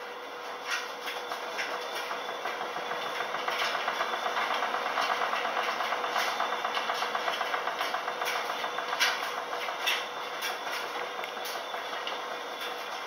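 Speed Queen front-loading washer tumbling a wet load: a steady hum under the sloshing of clothes and water in the turning drum, with scattered knocks as the load drops. The wash swells for several seconds in the middle, with the loudest knock just after that.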